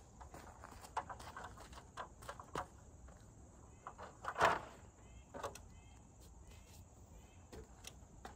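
Scattered knocks and clatter of a stepladder being moved and set up under a wooden beam, with footsteps on sandy ground; one louder knock about four and a half seconds in. A few short bird chirps in the middle.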